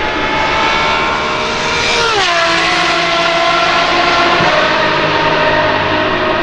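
Apollo IE's naturally aspirated 6.3-litre V12 at high revs going past at speed: its high engine note drops sharply in pitch about two seconds in as the car passes, then carries on at a steady lower pitch as it pulls away.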